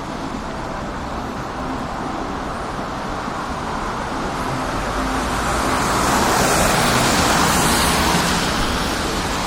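Road traffic noise from cars, with one vehicle's tyre noise swelling as it passes about six to eight seconds in, then fading.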